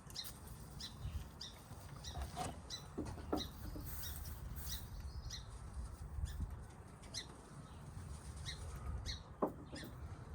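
Backyard hens foraging, with short high chirps repeating every half second or so and a few lower calls over a steady low rumble.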